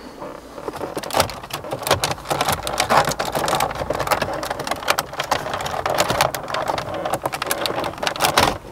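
Plastic trim bezel around a MINI F56's centre display being pulled off its housing by hand: a dense, irregular run of plastic creaks, clicks and cracks as the bezel flexes and its clips let go.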